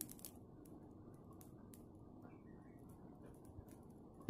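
Near silence: a faint steady low background with a few faint ticks, and one sharper click near the end.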